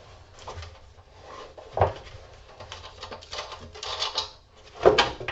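Clatter of small scrap metal parts being handled and taken apart: scattered taps and rattles, with a knock about two seconds in and a louder one near the end.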